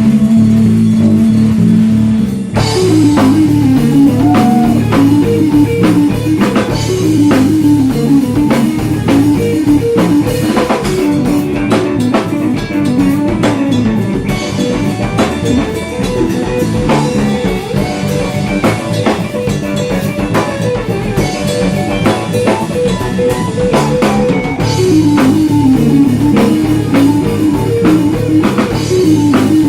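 Instrumental progressive rock/fusion trio playing live: guitar melody over bass guitar and drum kit. The drums and full band come in about two and a half seconds in, after a held low note.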